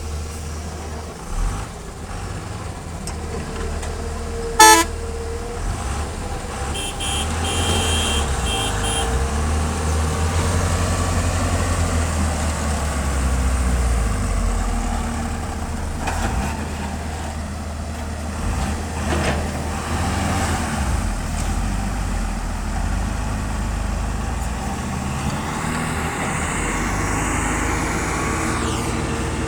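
Diesel engine of a Cat 320 excavator working under load, its rumble rising and falling. There is a sharp bang about four and a half seconds in and a few short high beeps a couple of seconds later.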